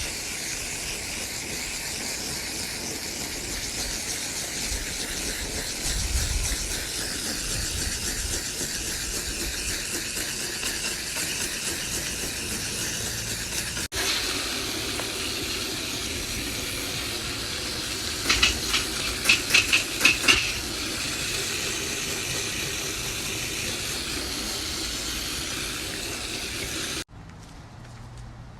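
Garden hose spray nozzle rinsing coil cleaner off an outdoor air conditioner's condenser coils, a steady hiss of water spray on the coil fins. A few louder spurts come about two-thirds of the way through, and the spray stops near the end.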